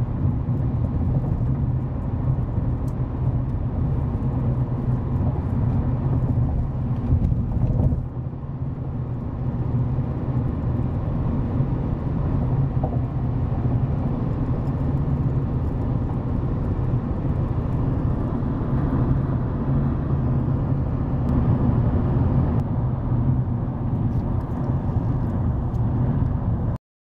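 Steady road and engine rumble heard from inside a moving car's cabin. It dips briefly about eight seconds in and cuts off suddenly near the end.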